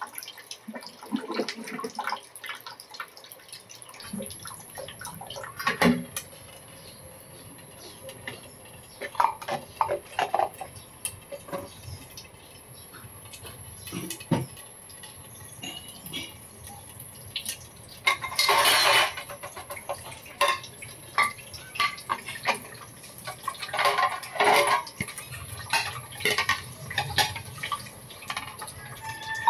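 Calamansi halves squeezed by hand, the juice dripping and splashing into a small ceramic dish, with scattered light clicks and knocks of fruit and seeds against the dishes. A longer, louder noise comes about two-thirds of the way through.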